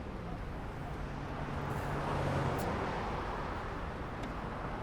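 Steady street ambience with traffic noise, swelling slightly about two seconds in as a vehicle passes.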